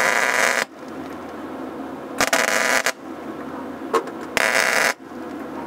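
MIG welder crackling in three short bursts, each under a second long, as steel is welded into a rusty car wheel arch.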